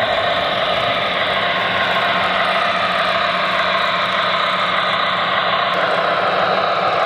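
Simulated diesel engine sound from the onboard Proto-Sound 3.0 speaker of an O-scale MTH NW-2 switcher model as the locomotive runs, a steady engine drone. Near the end the low rumble drops away.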